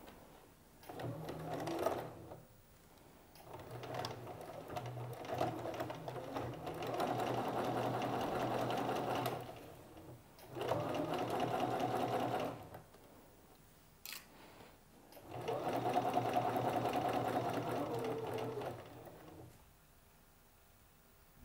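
Bernina electric sewing machine stitching a seam, running in four stretches of a few seconds each with short stops between. A single sharp click falls in one of the pauses, about two-thirds of the way through.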